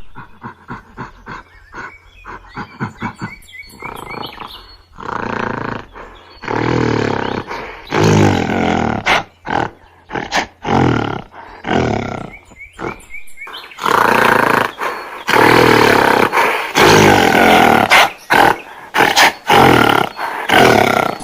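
Gorilla vocalizing: a quick series of short grunting calls, then long, loud roars and growls that come almost without a break in the second half.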